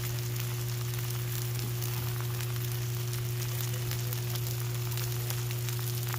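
Steaks and pork chops sizzling on a 22-inch Blackstone Adventure Ready flat-top griddle, a steady crackling hiss full of fine pops, over a steady low hum.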